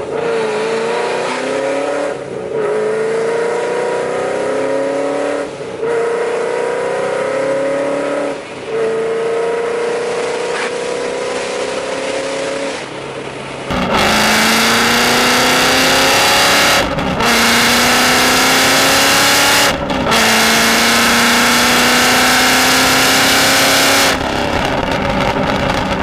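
Ford Mustang GT's 5.0 V8 breathing through AWE Touring axle-back mufflers, accelerating through the gears: the exhaust note climbs in pitch and drops at each upshift, about every three seconds at first. About halfway through it gets louder and fuller, with longer rising pulls broken by two more shifts.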